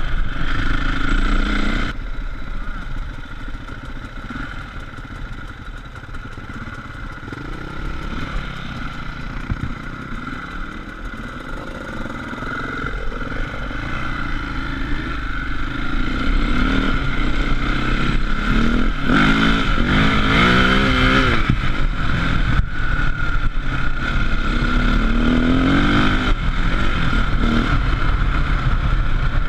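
KTM enduro motorcycle's engine heard from on board while riding a dirt trail, its revs rising and falling with the throttle. It runs quieter for the first dozen seconds, then pulls harder and louder, with rising revs twice in the second half.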